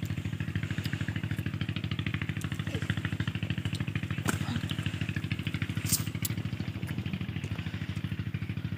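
An engine running steadily at idle, a fast, even chugging. A few sharp snaps over it as mustard stalks are broken off by hand.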